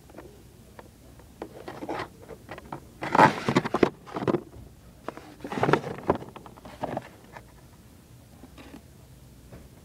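Blister-card toy packages being handled on store pegs: plastic blisters and cardboard cards crinkling and scraping against each other in several short bursts, with light clicks. The loudest bursts come about three seconds in and again a couple of seconds later.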